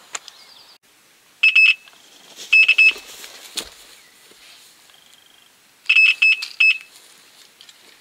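Electronic carp bite alarm beeping: three quick bursts of rapid, high-pitched beeps, signalling a run as a fish takes line.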